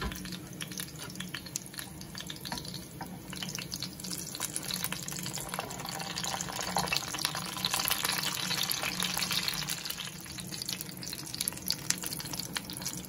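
Whole striped-peeled eggplants frying in shallow olive oil in a pan: a steady sizzle with dense fine crackling, growing louder in the middle.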